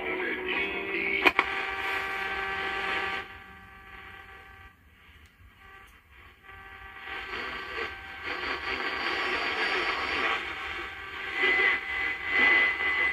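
1970s AM/FM console radio being tuned across the dial: snatches of broadcast and static from its speaker, with a sharp click about a second in. It fades to faint hiss for a few seconds in the middle before a signal comes back in, with a steady whistle near the end.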